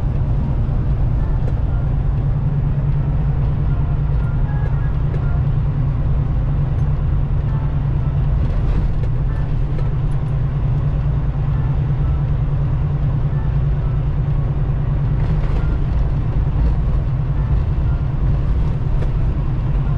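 Semi truck on the move: a loud, steady low drone of engine and road noise that does not change throughout.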